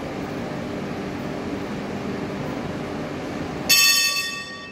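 A tram standing at an underground platform hums steadily from its air-conditioning and running gear. Nearly four seconds in, one loud ringing bell-like chime sounds and dies away.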